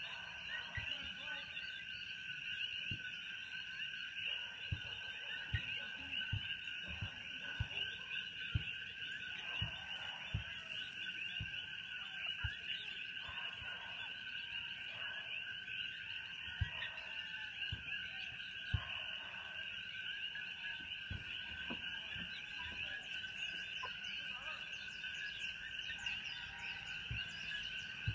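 A dense, steady chorus of calling frogs, with scattered soft low thumps.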